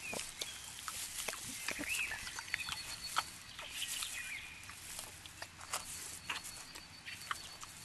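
Brown bears foraging through berry shrubs: scattered crackling and rustling of twigs and leaves underfoot and at the bushes, irregular and fairly quiet.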